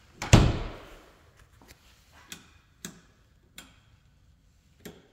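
A single loud thud with a short ringing tail about half a second in, then a few sharp, unevenly spaced clicks of footsteps on a hard floor.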